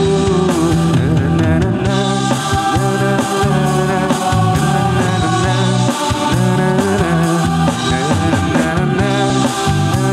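Live song: a male singer singing into a microphone through a PA speaker over instrumental accompaniment.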